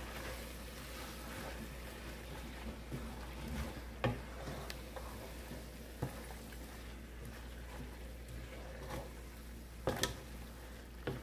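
Wooden spatula stirring wilting spinach and tomato stew in a metal pot: soft squishing of the leaves, with a few light knocks of the spatula against the pot, over a low steady hum.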